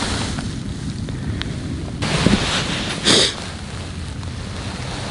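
Wind rumbling on the microphone, with two short rustles about two and three seconds in.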